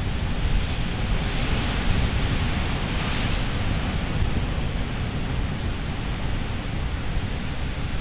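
Ocean surf breaking against shoreline rocks: a continuous wash of waves with a hiss of spray that swells a second or so in and eases after about four seconds.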